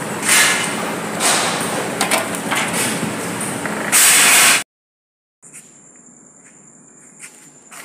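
Industrial bakery oven's machinery running: a loud rushing, clattering noise with repeated surges, ending in a louder burst that cuts off abruptly about four and a half seconds in. After a moment of silence, crickets chirr steadily and faintly, with a few light clicks.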